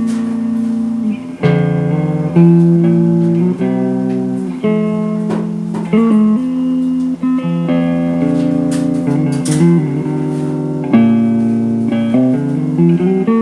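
Background music: a guitar played in changing chords with plucked notes, loud and steady.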